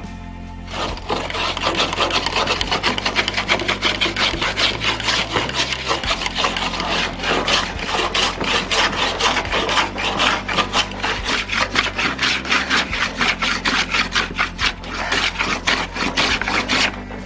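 Hand plane shaving a pallet-wood paddle blade in quick, short strokes, several a second, each cut a rasping scrape of the blade through the wood. The strokes start about a second in and stop shortly before the end.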